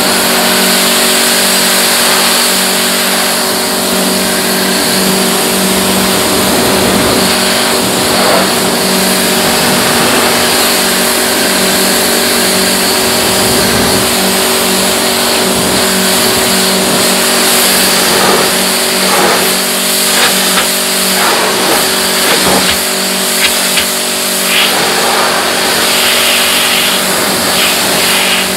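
A pressure washer's motor running steadily, with the hiss of its water spray; a few short knocks and spatters come in the second half.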